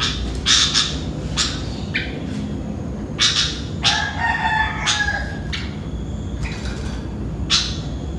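Sooty-headed bulbul (kutilang) giving short, sharp calls about ten times, spaced irregularly. A rooster crows once about four seconds in.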